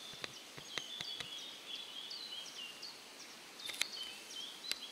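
Caterpillar droppings (frass) falling from the tree canopy and ticking on the leaves in scattered, irregular clicks that sound like light rain. A small bird sings a run of short, high, falling notes over them.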